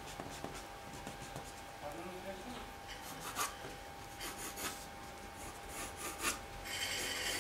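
Staedtler graphite pencil scratching across drawing paper in short, quick strokes, pressed hard.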